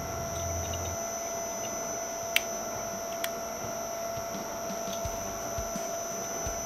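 Electric twin-shaft shredder running empty: a steady motor whine over a low hum. Two sharp clicks come about a second apart, a little over two seconds in.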